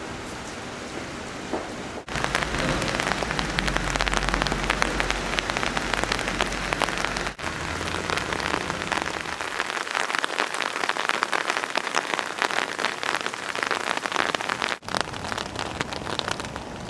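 Heavy rain falling, a dense patter of drops hitting surfaces. The level jumps abruptly about two, seven and fifteen seconds in, and a low rumble lies under the rain from about two to seven seconds in.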